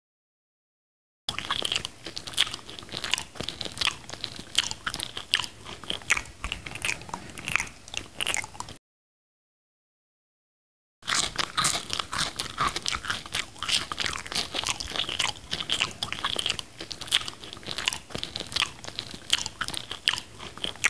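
Close-up eating sounds of mango slices being bitten and chewed: wet, crisp crunching with many quick clicks. The sound cuts to dead silence for the first second or so and again for about two seconds near the middle.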